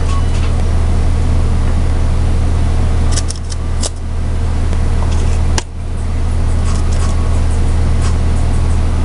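A loud steady low hum, with a few sharp clicks of a plastic measuring spoon knocking against a plastic jar as clay powder is scooped and sprinkled; the loudest click comes a little past halfway.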